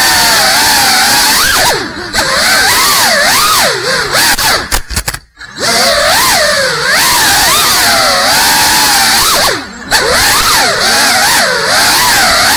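GEPRC CineLog35 cinewhoop's motors and ducted propellers whining, the pitch swinging up and down quickly with the throttle. The sound dips sharply three times, about two seconds in, around five seconds and near ten seconds, almost cutting out the middle time.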